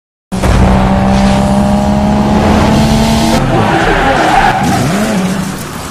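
Car sound effect for a logo intro: a car skidding with its tyres screeching. It cuts in suddenly, holds steady, changes about halfway through, then fades away near the end.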